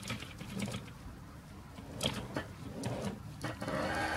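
Model train moving on the track: small clicks and rattles from wagon wheels and couplers, with a small electric motor whirring louder in the last second or so as the wagons draw apart.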